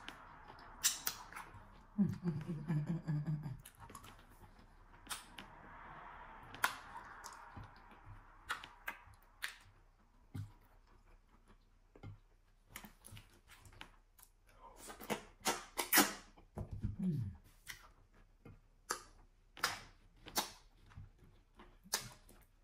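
Wet mouth sounds of someone eating fufu and okra soup by hand: lip smacks, sucking and chewing clicks, dozens of them at an uneven pace. A short low hum is heard about two seconds in and again about two-thirds of the way through.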